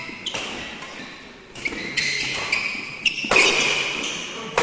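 Doubles badminton play on an indoor court: several sharp racket hits and footfalls with shoe squeaks on the court floor, ringing in a large hall.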